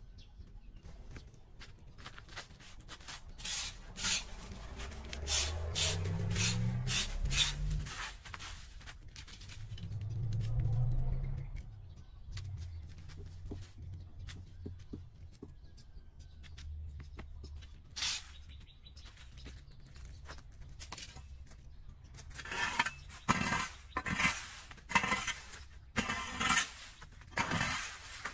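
Dry leaves and seed pods crackling and rustling as they are disturbed. Near the end a rake scrapes them across concrete in quick, repeated strokes. A low hum swells and fades twice in the first half.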